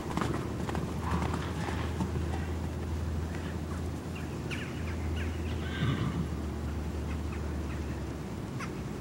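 Hoofbeats of two loose horses cantering on sand in the first second or so, then dying away as they stop; about six seconds in one of the horses gives a short call. A steady low rumble runs underneath.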